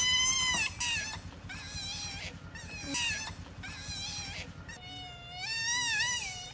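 Otter giving a string of high-pitched squeaking whistles: several short calls about a second apart, then a longer call with a wavering pitch near the end.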